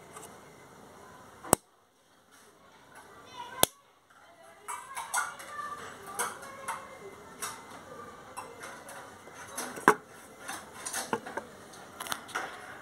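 Two sharp pops about two seconds apart as the player box's rocker power switch is flipped off and back on, the steady background noise dropping out between them. After that come irregular clicks and knocks from the box being handled.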